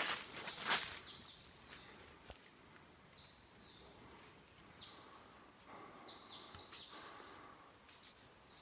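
Insects trilling in a steady high-pitched drone, with a footstep or two on the trail in the first second and a few faint short chirps in the middle.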